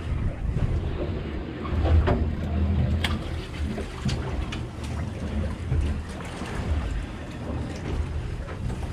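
Open-air sound on the deck of a fishing boat at sea: a steady low rumble with wind and water noise, and scattered light clicks and knocks.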